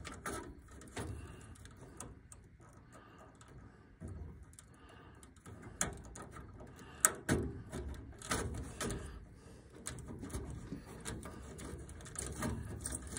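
Scattered small clicks and knocks of spade-connector wire terminals being pulled off the old furnace control board and pushed onto the new one, with the wires being handled between them. The sharpest click comes about seven seconds in.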